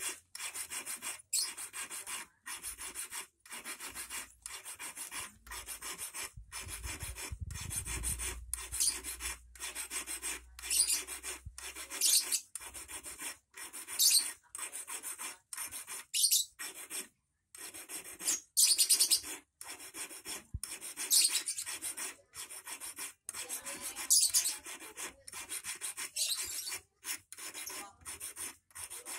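Small hand file rasping back and forth across the end of a 2.5 mm rust-proof wire braced against a wooden block, filing the point of an eel hook. It goes at about two strokes a second, with a short pause about seventeen seconds in.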